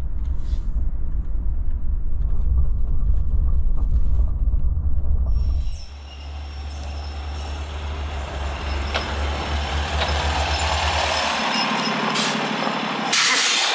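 Heavy low rumble of a sedan driving, heard from inside the cabin, then a diesel day-cab semi tractor rolling up and idling. Near the end comes a sudden loud hiss of air as the truck's air brakes are set.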